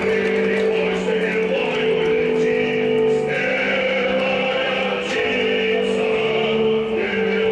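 Music with choir-like singing over long held notes, the lower notes changing every second or so.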